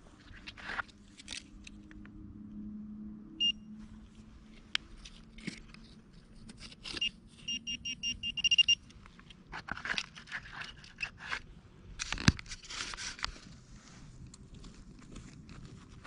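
Metal detector pinpointer beeping: one short beep, then a rapid run of beeps about four seconds later as it picks up metal in the hole. Around it, soil and stones scrape and crunch as the hole is dug, with a single sharp knock about twelve seconds in.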